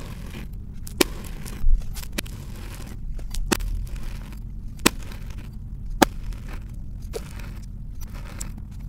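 A large steel kitchen knife slicing strips off slabs of kinetic sand, about one cut a second. Each cut is a soft, gritty crunch ending in a sharp click as the blade meets the surface beneath.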